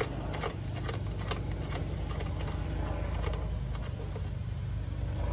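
A bolt turned by hand into a thread in a van's steel pillar, giving a few light metallic clicks and scrapes in the first three seconds or so, over a steady low rumble.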